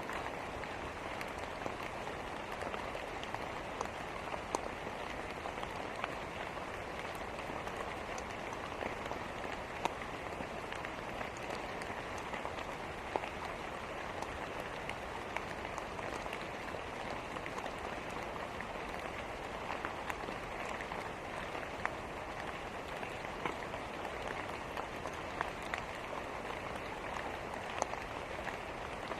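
Steady, even rain noise with scattered short sharp ticks or pops through it.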